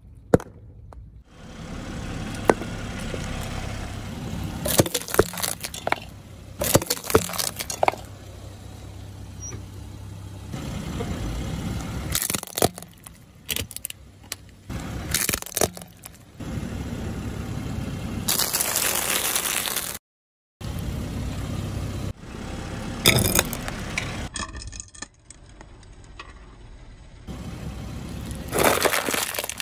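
A series of hard plastic toys and a clear plastic food container cracking, snapping and crunching as a car's tyre rolls over them on asphalt, several separate crushes with sharp loud cracks. Between them the car rolls slowly with a low, steady rumble.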